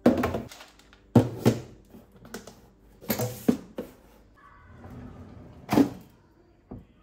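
Clear plastic food storage containers knocking against each other and being set down in a pull-out kitchen drawer, several sharp knocks. About six seconds in, the drawer is pushed shut with a single loud knock.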